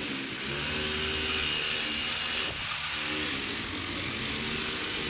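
Orbital sander running steadily against the car's body panel: a motor whine over a sanding hiss. Its pitch dips briefly about half a second in and again around the middle.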